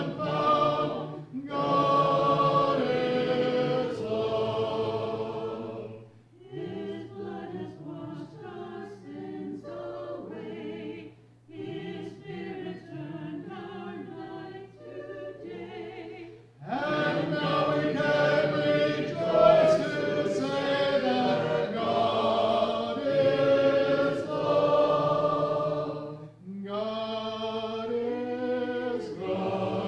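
A congregation singing a hymn unaccompanied, in parts. About six seconds in, the singing drops to a quieter section carried by the women alone. The full congregation comes back in loudly at around sixteen seconds, with a short break near twenty-six seconds before the refrain.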